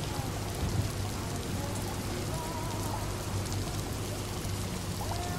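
Steady rain pattering, with a low steady hum underneath.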